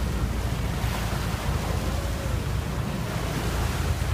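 Sea waves washing against the rocks at the mouth of a sea cave, a steady surging wash, with a low wind rumble on the microphone.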